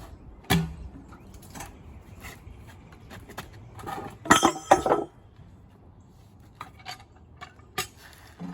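Metal clanks and clinks on a steel portable sawmill and its hand tools: one sharp knock about half a second in, then a burst of loud, ringing clanks about four seconds in, with lighter ticks in between.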